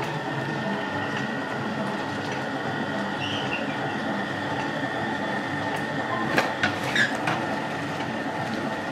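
Tea rolling machine running: a steady mechanical rumble with a faint steady high whine, as the table turns the leaves under the pressure cylinder. Three or four sharp clatters come between six and seven and a half seconds in.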